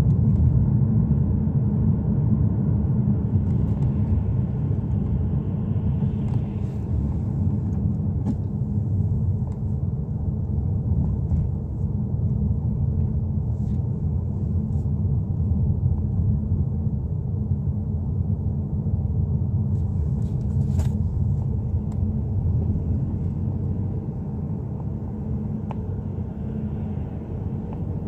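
Steady low rumble of a car's engine and tyres heard from inside the cabin while driving, easing slightly near the end.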